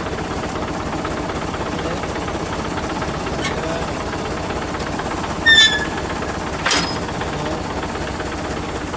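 Prime mover's diesel engine idling steadily. About five and a half seconds in a short metallic squeal rings out, and about a second later a sharp metal clank, from the fifth-wheel coupling and trailer plate during uncoupling.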